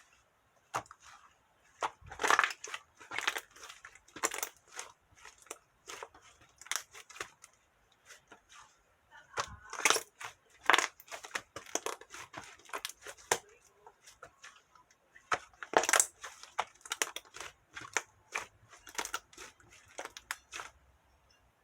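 Hands kneading and stretching cloud slime and cheese slime together: irregular sticky squishes and crackles, coming in clusters, with the loudest patches a couple of seconds in, around the middle and about three quarters through.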